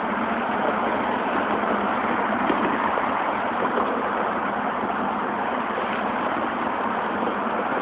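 Steady rush of road traffic as cars drive past on the bridge, an even noise with no distinct events.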